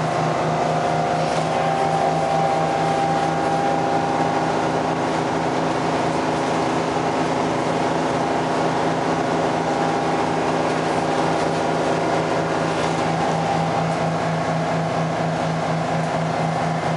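Detroit Diesel 6V71N two-stroke V6 diesel engine running steadily, heard from inside the cabin of the GM New Look bus: a constant multi-toned drone with a low, evenly pulsing hum beneath it.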